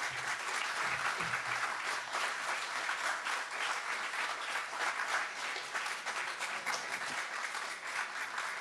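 Audience applauding: dense, steady clapping from a seated crowd, thinning a little near the end.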